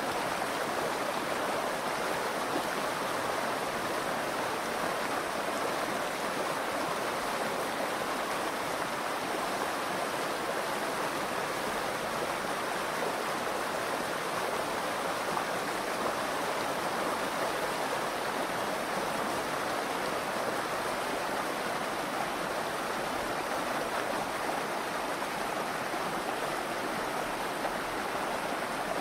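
Steady rushing of the Virgin River's flowing water.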